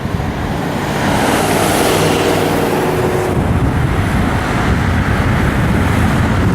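Freeway traffic rushing past, a steady loud rumble and hiss of tyres and engines that builds over the first second. A faint held tone runs for a couple of seconds about two seconds in.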